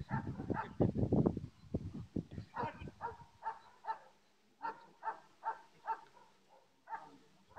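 A low, muffled rumble for the first second or so, then a dog barking in a steady series of short barks, about two or three a second, with a brief pause partway through.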